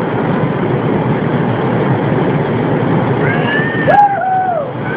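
Waterfall pouring steadily into its pool, a loud, even rush of water. A little past halfway a person's voice gives a drawn-out call over it, with a sharp click near its start.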